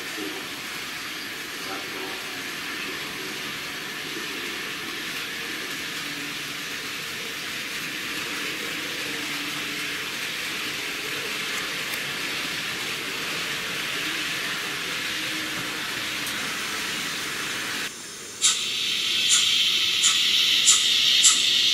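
Steady hiss with faint drifting tones. After a cut near the end, a model steam locomotive's sound decoder plays a louder steam hiss with sharp, regular chuffs that grow louder.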